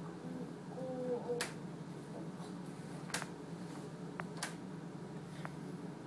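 Magnets clicking and tapping onto a steel refrigerator door as a toddler handles them: three sharp clicks about a second and a half apart and a few lighter ticks, with a brief toddler vocal sound about a second in, over a steady low hum.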